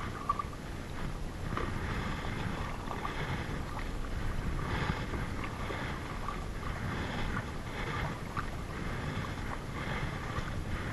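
Kayak paddling: a double-bladed paddle dipping and pulling through the water in a steady rhythm, one splashing stroke about every one and a half to two seconds, over a steady low rumble.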